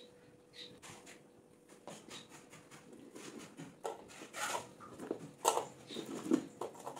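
Soft, scattered knocks, clicks and rustles of fried pakoras and a stainless steel bowl being handled over a plate. A faint steady hum sits underneath.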